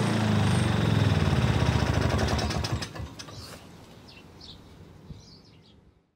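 Rover M120X mower's Suzuki two-stroke engine running at a steady speed after a carburettor clean and new spark plug, then shut off about three seconds in, its firing slowing as it runs down. Birds chirp afterwards.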